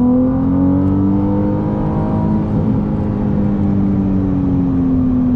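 Ferrari 296 GTB's twin-turbo V6 heard from inside the cabin, pulling under load down the straight: its pitch rises over the first couple of seconds, then eases slowly downward as the car holds speed.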